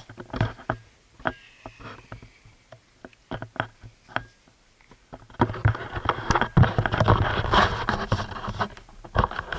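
Handling noise on the camera's microphone: scattered clicks and knocks, then from about five seconds in, a few seconds of dense rustling and scraping.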